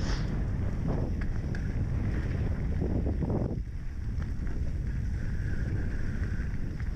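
Wind buffeting an action camera's microphone as a mountain bike rolls fast down a dirt singletrack, with the tyres rolling over the dirt. A few sharp clicks and rattles come from the bike.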